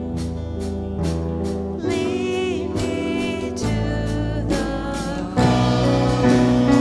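Live church worship band playing a worship song, with a sung vocal line over sustained chords and a steady beat of percussion hits. The band gets louder about five seconds in.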